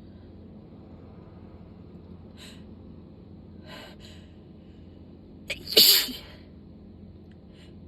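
A person's sneeze in the middle of a sneezing fit: two faint short breaths in, then one loud sneeze a little past halfway.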